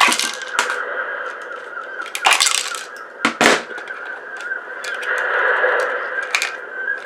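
Sharp cracks and snaps of hard plastic parts being handled and pried apart during the dismantling of a refrigerator ice maker, over a steady background noise. The loudest snaps come at the start, around two to three seconds in, and again near the end.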